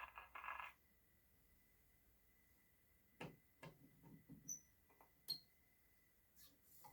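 Music from a 1918 Silvertone B-XII hand-cranked acoustic phonograph stops abruptly under a second in. Then there is near silence with a few faint clicks and knocks between about three and five seconds in.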